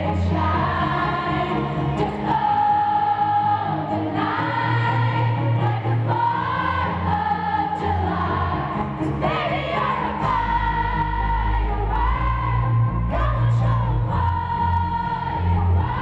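Live arena pop concert: a female lead singer sings over a full band, with a heavy bass line.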